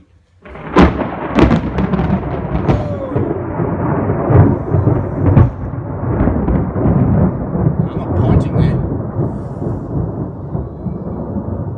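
Thunder from a close lightning strike: a sharp crack about a second in, a quick run of further cracks, then a loud rolling rumble that slowly eases over the following ten seconds.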